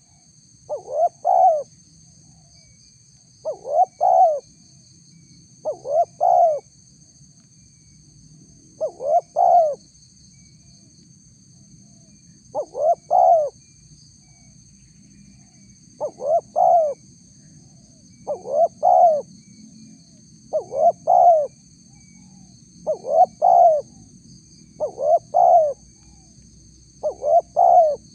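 Spotted dove (tekukur) cooing: a short phrase of three or four coos, repeated about every two to three seconds.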